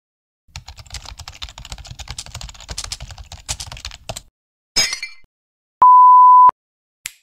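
A run of editing sound effects. Fast computer-keyboard typing clatters for about three and a half seconds. About five seconds in comes a short noisy hit, then a steady single-pitch beep of under a second, the classic censor bleep.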